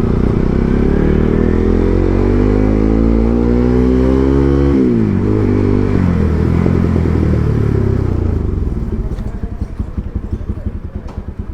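Motorcycle engine revving up, its pitch climbing steadily for about five seconds, then dropping sharply as the throttle closes. It settles to a lower, fading run with a pulsing beat near the end.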